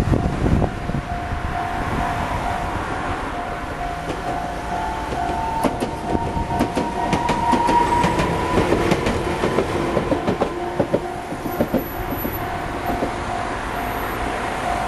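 An Enoden electric train passes over a Japanese level crossing while the crossing's warning bell rings steadily in a repeating pattern. The train's wheels clatter over the crossing and rail joints in a run of clicks in the middle, with a rising motor whine as it goes by.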